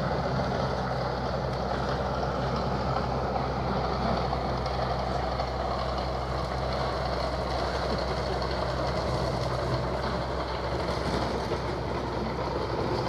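Diesel engine of construction plant at a dig site running steadily, a constant low engine hum with no break.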